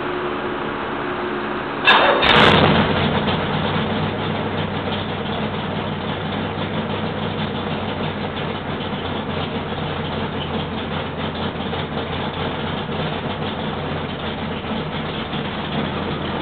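Rebuilt L88 427 Chevrolet big-block V8 on an engine run stand firing up about two seconds in with a sudden loud burst, then settling into steady running.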